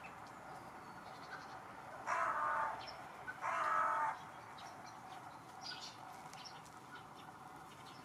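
Hooded crow cawing twice, two harsh drawn-out caws about a second apart, a little after two seconds in.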